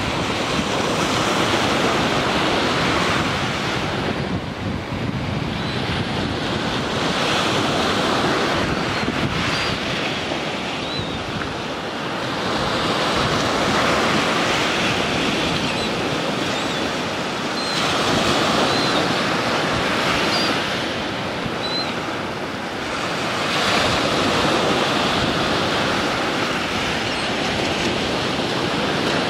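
Small surf breaking on a sandy shore: waves crash and the foam washes up the beach, the rush of water swelling and easing about every five seconds.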